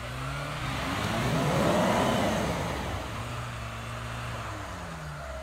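Off-road 4x4 engines revving under load while a Mitsubishi Pajero Sport is pulled on a tow strap through a deep snow rut, with a rush of tyre and snow churning noise swelling about two seconds in, then a steadier engine drone.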